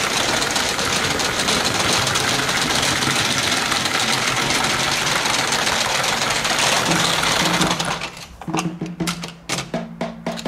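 Battery-powered Thomas and Friends toy engine running on plastic track, a steady loud whirr of its small motor and gears with the wheels rattling on the track. About eight seconds in the whirr cuts out, leaving a few clicks and a low hum as a hand handles the trains.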